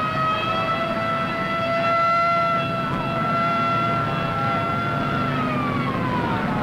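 Siren wailing on one steady high pitch, then winding down in pitch near the end, over a low crowd murmur.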